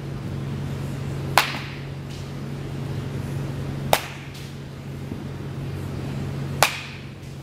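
Baseball bat striking pitched balls in a batting cage: three sharp cracks of contact, a little over two and a half seconds apart, over a steady low hum.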